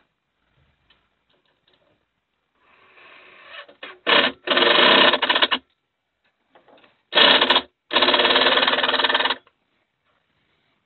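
Small electric power driver, such as a cordless drill-driver, spinning a nut or bolt home in two runs of about a second and a half each, each preceded by a short blip of the trigger.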